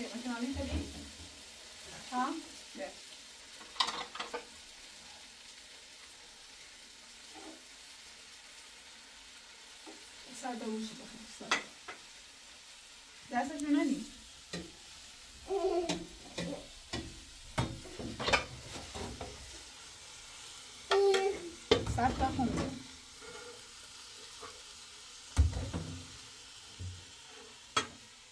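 Intermittent scraping and knocking, about fifteen short strokes at irregular intervals, over a faint steady hiss: the sound of something being worked or stirred in a container.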